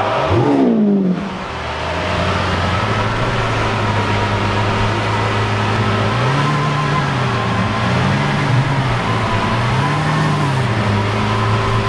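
Lamborghini Centenario's V12 engine: the revs drop away in the first second, then it idles steadily, with three short throttle blips in the second half.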